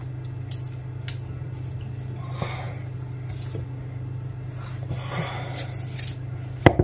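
Hands working raw meat while tying a rolled tenderloin tightly with kitchen twine: soft squishing and rustling, with two sharp taps near the end, over a steady low hum.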